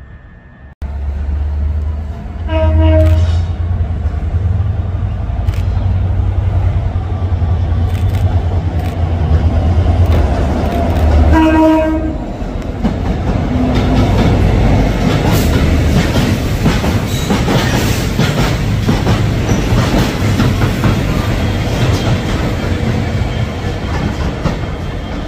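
Class 66 diesel freight locomotives passing close by: the leading locomotive's EMD two-stroke V12 diesel engine is running, and its horn sounds two short blasts about nine seconds apart. After that the wagons' wheels clatter over the rail joints as the train rolls past, with the second locomotive's engine running.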